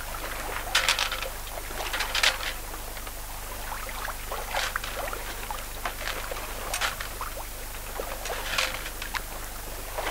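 Water splashing and gurgling along the hull of a Westerly Centaur sailing yacht under way, with a louder splash about every two seconds and a faint steady low hum underneath.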